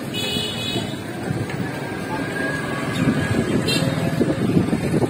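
Road traffic going past: a rough engine rumble from passing vehicles, louder from about three seconds in, with two short high-pitched ringing bursts, one at the start and one a little past halfway.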